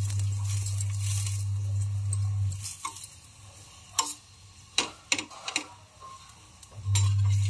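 A steel spoon spreading oil over a paratha on a hot tawa: light sizzling with scraping, and a few sharp clicks of metal on the pan between about four and six seconds. A steady low hum drops out about a third of the way in and returns near the end.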